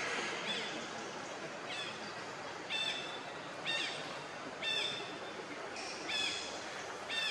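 A bird calling over and over: a short, slightly falling call repeated about once a second, with a steady background hiss.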